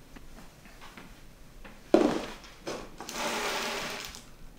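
Plastic lunchboxes put down on a kitchen countertop with a sharp knock about two seconds in and a lighter knock after it. They are then pushed across the counter with a scraping rub lasting about a second.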